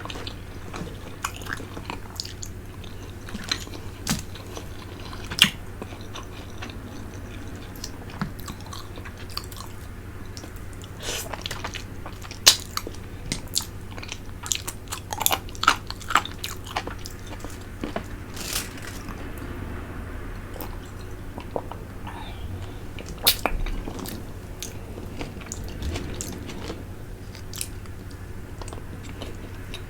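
Close-miked mouth sounds of eating a fish head from tinola: wet sucking, slurping, lip smacks and chewing, in scattered sharp clicks that come in clusters, over a faint steady low hum.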